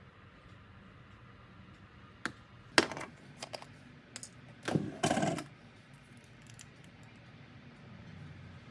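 Kitchen utensils clinking and clattering: a sharp knock a few seconds in, a few light clicks, then a longer clatter with a ringing tone about five seconds in, over a faint steady hum.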